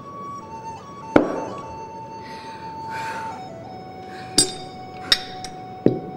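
Background music with long held notes, over four sharp clinks of drinking vessels knocking together: one about a second in and three close together near the end.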